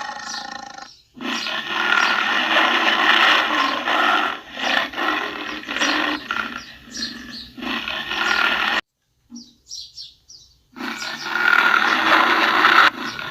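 Tiger roaring in long, rough calls: one runs for several seconds and stops abruptly, and after a pause of about two seconds another roar begins.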